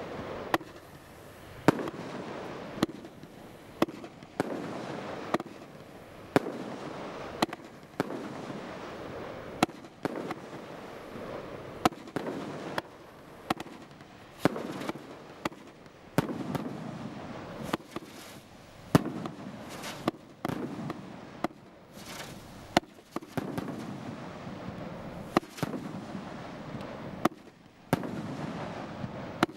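200-shot barrage firework cake firing: a sharp report about once a second, each followed by a rush of noise from the shot's effect.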